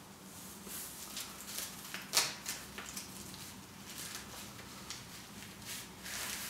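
Soft rustling and handling noises of an elastic anti-snoring chin strap being fitted over the head and mouth, with one louder rustle about two seconds in.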